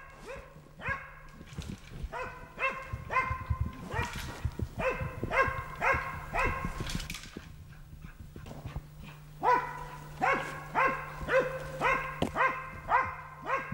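Tracking dog barking at bay (Standlaut) at a wounded red deer stag it is holding: sharp barks in runs of several, about two a second, with a pause of about two seconds a little past the middle.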